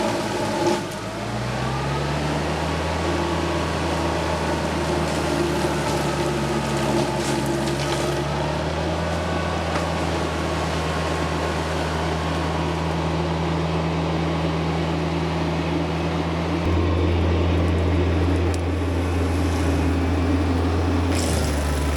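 TYM 474 tractor's diesel engine running steadily while driving a Baumalight MP348 forestry mulcher. About a second in, the engine pitch dips briefly and recovers, as if bogging under load, and it gets louder near the end.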